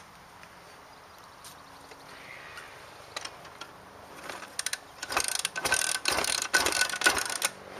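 A burst of rapid, loud mechanical clicking and rattling, starting about four seconds in and lasting about three seconds.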